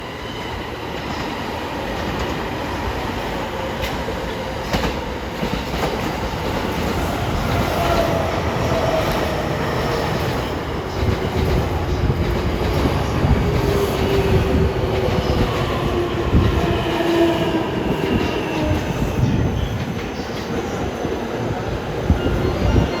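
E233-3000 and E231-1000 series electric train running into a station platform at speed and braking. A steady rumble with clicks of wheels over rail joints, and a motor whine that falls in pitch from about eight seconds in.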